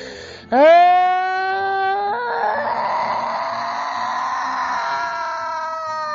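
A long, high-pitched human wail of anguish. It swoops up sharply about half a second in and is held for more than five seconds, turning raspy and strained partway through and sliding slowly down in pitch.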